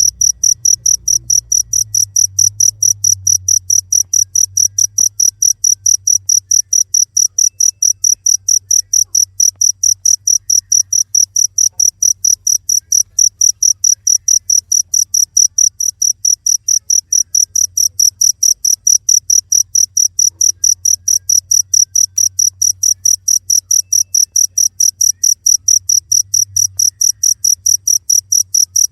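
Cricket chirping loudly in a steady, even rhythm of about three high-pitched chirps a second.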